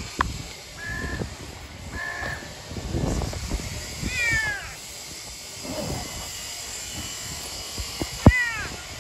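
A stray cat meowing: two drawn-out meows that rise and then fall in pitch, one about four seconds in and one near the end. Sharp knocks come at the start and just before the second meow.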